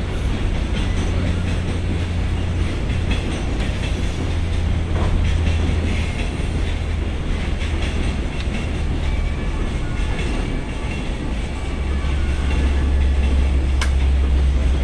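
A freight train's container flat wagons rolling past on the tracks with a steady low rumble, and one sharp click near the end.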